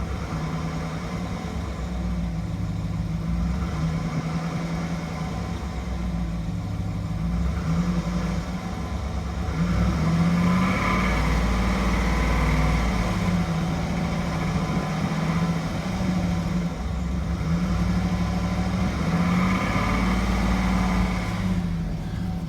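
The 6.2 L L92 V8 in a high-mileage 2007 GMC Yukon Denali runs steadily at idle, getting a little louder for a few seconds midway. The owner suspects pushrod chatter and piston slap in this engine, and finds it much quieter after changing to 0W-20 synthetic oil.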